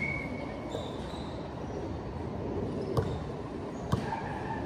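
A basketball bouncing on the court floor: one thump at the start and two more near the end. A short, high, steady squeak comes at the start, with players moving about the court.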